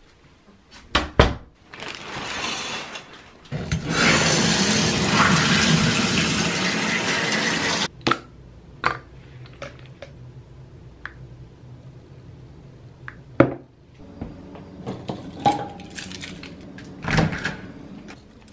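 A doorknob latch clicks, then water runs loudly for about four seconds and stops abruptly. After that come scattered clicks and knocks of small items being handled, and a door being opened near the end.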